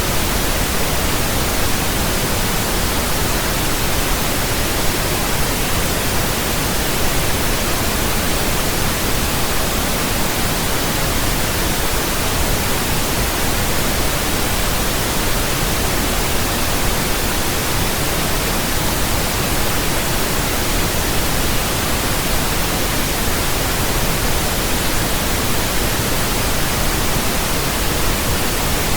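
Synthetic pink noise: a steady, even hiss spread across all pitches, with no change or events.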